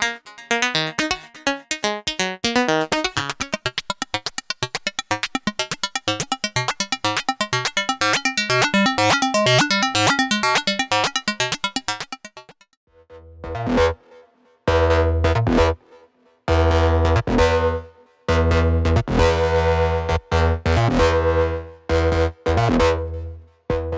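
Modular synthesizer patch: a Doepfer A-188-9 high speed VCO clocking an A-188-1 BBD module to make Karplus-Strong style pitched tones. A fast sequence of short plucked notes runs for about twelve seconds, then after a short pause come longer, deeper held tones with a heavy bass, in several blasts with brief gaps between them.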